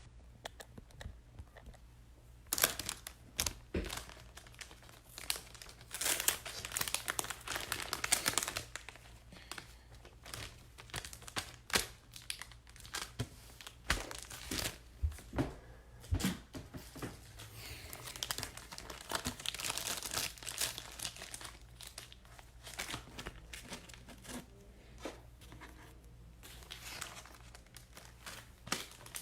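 Plastic packaging being handled, crinkled and torn by hand in irregular bursts of rustling with scattered small clicks, over a steady low hum.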